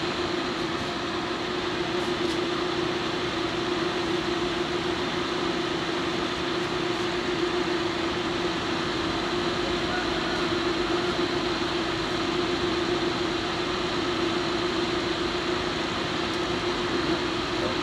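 Steady machine hum with an even hiss and one constant tone, unchanging throughout.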